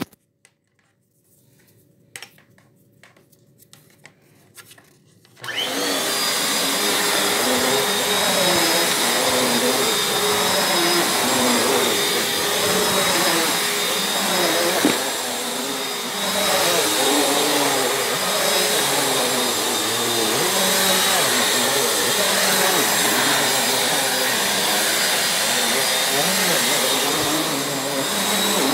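Bissell Powerforce Compact upright vacuum cleaner switched on about five seconds in, after a few clicks and knocks, then running steadily with a high whine over its motor and airflow noise.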